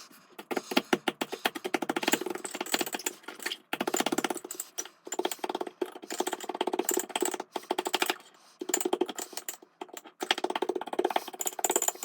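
Oreo cookies being squished and mashed in a mug: quick runs of crunching, clicking strokes, broken by short pauses.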